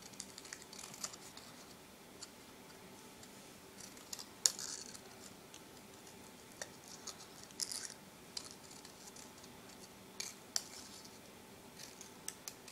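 Small scissors cutting paper in short, irregular snips, with light paper rustle, as a detailed shape is cut out along traced lines. A few snips stand out louder than the rest.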